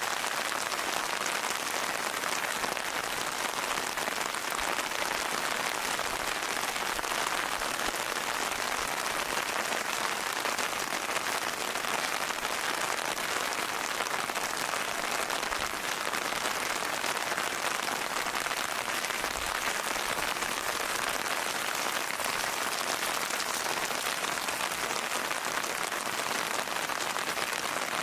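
Steady rain, a dense even hiss of drops falling on a surface, with no let-up or change.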